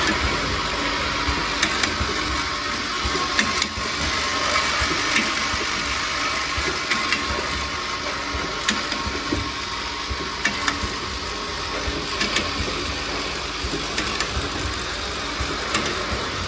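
Automatic small-bottle liquid filling and capping line running: a steady mechanical whir and hiss with frequent irregular clicks and clacks from the mechanism and bottles.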